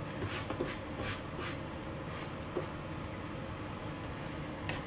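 Metal ladle stirring thick chickpea masala in a kadhai, a scattered run of quiet scrapes against the pan.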